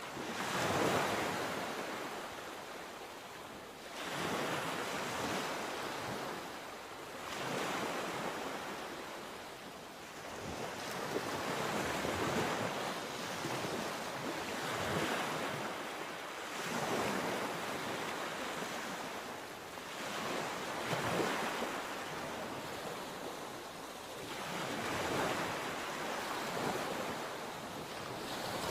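Sea waves breaking and washing on the shore, surging and fading again every few seconds, with some wind on the microphone.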